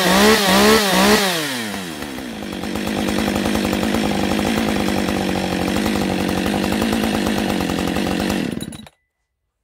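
Husqvarna 545 AutoTune chainsaw's two-stroke engine blipped up and down in a couple of quick revs, then settling to a steady idle. The sound cuts off suddenly near the end.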